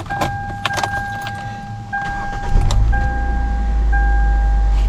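Hyundai Elantra's dashboard warning chime sounds in repeated tones about once a second, with key clicks at first. About two and a half seconds in, the engine starts and settles into a steady low idle, running on a new battery with an alternator that is not charging.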